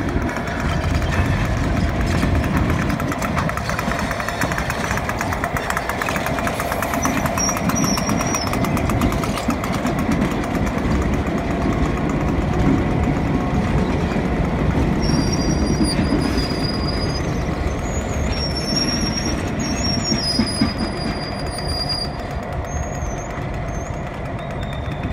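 Ontario Southland Railway diesel locomotives, a hood unit and an F-unit cab locomotive, running past at low speed: a steady engine drone over rumbling wheels on the rails. In the second half come several brief, high-pitched squeals, most likely from the wheels.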